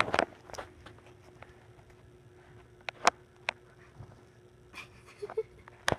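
A kitten scampering and pouncing on carpet: a few sharp knocks, near the start, about three seconds in and just before the end, with quiet paw patter between.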